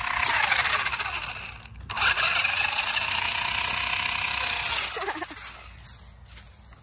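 RC car motor whining as it is throttled in two long bursts, its pitch rising and falling, with a gritty scraping of the wheels over the dirt trail.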